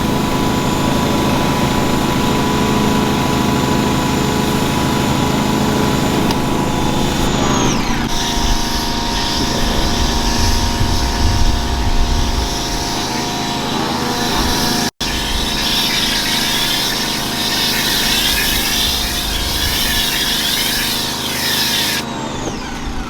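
Loud, steady machine noise with a hum of several steady tones. It changes character abruptly twice, with a brief dropout midway.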